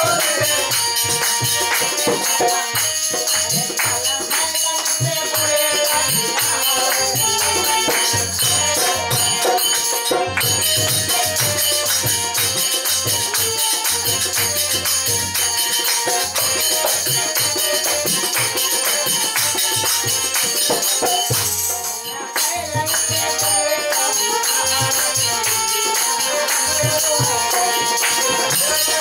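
Live Indian folk music on harmonium and tabla: a sustained harmonium melody over a steady beat of drum strokes, with a jingling rattle-like percussion on top.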